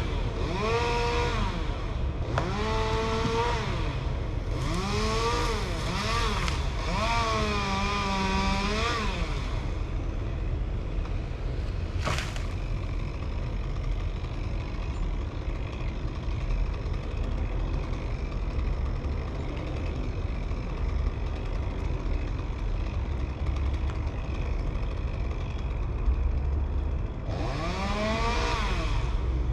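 Chainsaw engine revving up and down again and again, each rise and fall taking about two seconds. A long stretch of steady low rumble follows, with a single sharp click about twelve seconds in, and the revving starts again near the end.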